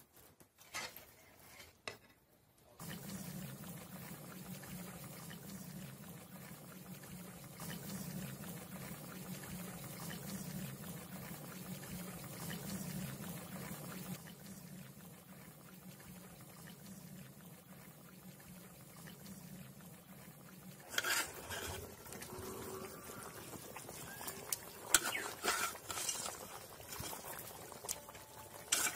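Fish curry simmering in a pan on a wood-fired clay stove, a steady bubbling. About three-quarters of the way through, a metal spatula starts stirring and knocking against the pan.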